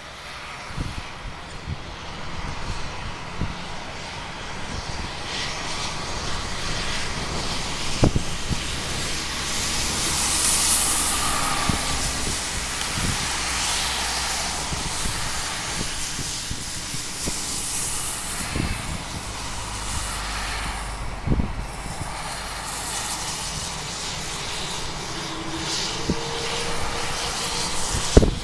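Boeing 787's Rolls-Royce Trent 1000 jet engines at taxi power as the airliner rolls past: a steady jet hiss and whine that swells about ten seconds in, with a few short thumps.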